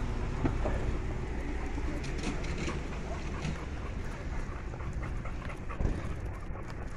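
Chow chows on leash making faint dog sounds over a steady background hiss and low rumble, with a few light clicks.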